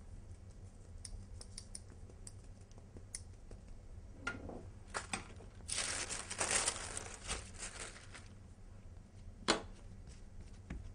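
Sheet of baking paper rustling and crinkling as it is handled, loudest for a couple of seconds around the middle, with a few light clicks before it and one sharp tap near the end.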